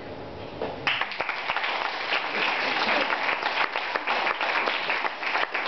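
Audience applauding, the clapping breaking out about a second in and running on as a dense patter of many hands.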